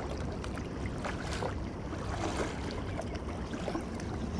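Wind buffeting the microphone, a steady low rumble, with small waves lapping against the rocky shoreline in faint scattered splashes.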